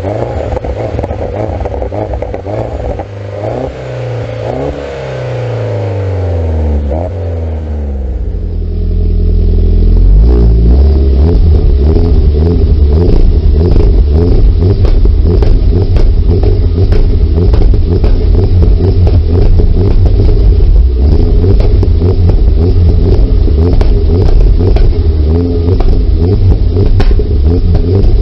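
Tuned car exhaust: the engine is revved up and down several times, with pops between the revs. Then it changes to a louder, steadier engine note with a rapid, irregular crackle of exhaust pops running through it.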